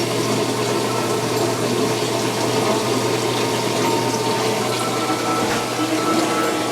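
Samsung top-loading washer filling at the start of a cycle: water running steadily into the tub, over a constant low hum.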